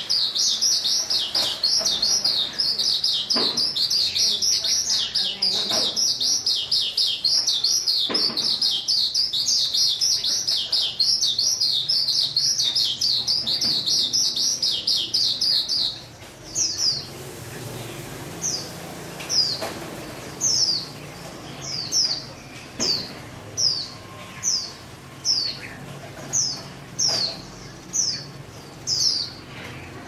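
Caged songbird singing: a dense, rapid run of high chirps for about the first half, then, after a sudden drop in level, a string of short single whistled notes falling in pitch, about one a second.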